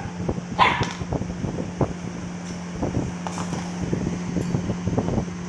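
A dog barks once about half a second in. After that come scattered light knocks and taps as a bulb holder is batted and rolled across a tiled floor, over a steady low hum.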